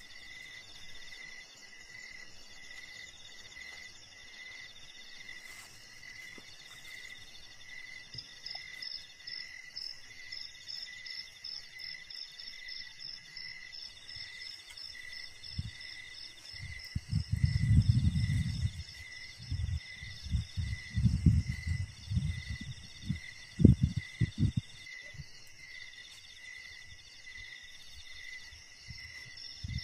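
Forest insect chorus: several insects call at once, one in a slow steady pulse, another in repeated buzzing phrases, and a fast high trill joins about a quarter of the way in. Past the middle, several seconds of loud low rumbling bursts come in and stop, the loudest sound here.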